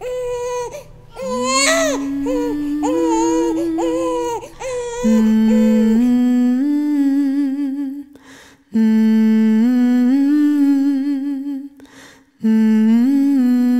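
A baby crying in short, wavering cries for the first few seconds over a low hummed note. Then humming in long held notes, in phrases broken by short pauses about 8 and 12 seconds in.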